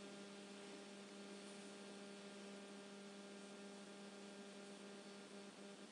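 Near silence with a faint, steady hum that holds one low pitch with a row of overtones above it.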